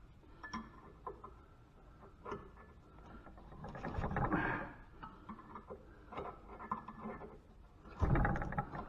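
Wrench working a rust-seized screw on an old farm water pump: scattered metal clicks and clinks of the wrench on the screw head. A strained grunt comes about four seconds in, and a denser clatter of metal near the end.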